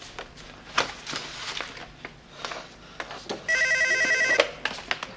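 Papers and a cardboard folder rustling and flipping on a desk. Then, about three and a half seconds in, a telephone gives one loud ring lasting about a second.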